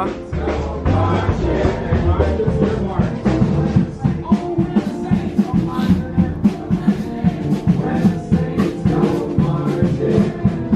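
Live jazz band playing a song with a steady beat.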